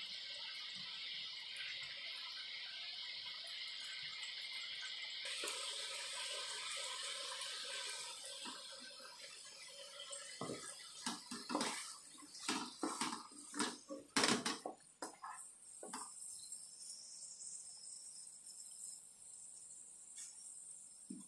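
Mutton pieces sizzling in hot oil in a kadhai (wok), a steady frying hiss. From about ten seconds in, a run of knocks and scrapes as a ladle stirs ginger-garlic paste into the meat, then a quieter sizzle.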